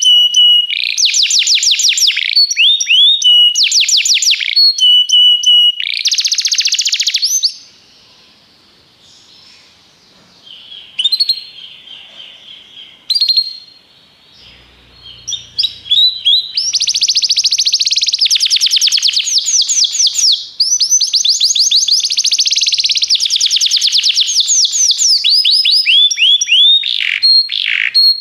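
A Belgian canary (domestic canary) singing: fast rolling trills of quickly repeated downward-sweeping notes, broken by held whistled notes. The song stops about a quarter of the way in, leaving only scattered chirps for several seconds, then starts up again at full strength.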